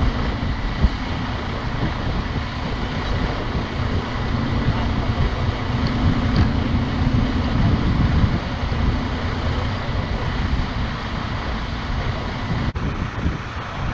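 Diesel semi-truck tractor engine running steadily, with low rumbling wind noise on the microphone.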